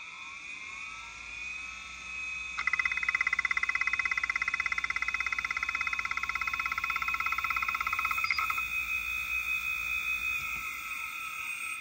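Damaged Kalok KL-320 MFM hard drive running open, its spindle whining as the platters come up to speed. About two and a half seconds in, a loud, fast rattling buzz from the head arm starts as the drive initializes and stops about eight seconds in, leaving the steady whine; it sounds nasty, the sign of a drive with a broken-off head running on its remaining three.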